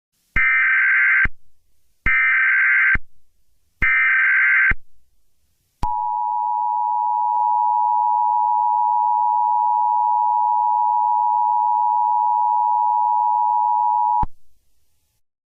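Emergency Alert System tones: three short bursts of SAME digital header data, each under a second, then the two-tone EAS attention signal held steady for about eight seconds before it cuts off. These tones open a broadcast alert, here a severe thunderstorm warning.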